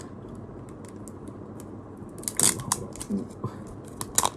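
Merchandise packaging being opened by hand: a loud crisp tearing rustle about halfway through, then a few sharp clicks near the end.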